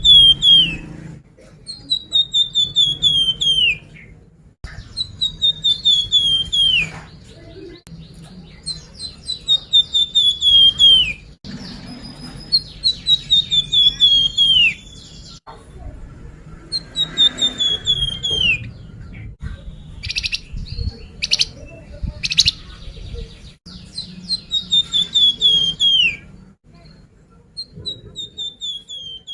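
Flamboyan songbird song played as a lure call: phrases of about a dozen quick chirps, each note sliding downward, lasting about two seconds and repeating every few seconds, over a low steady hum.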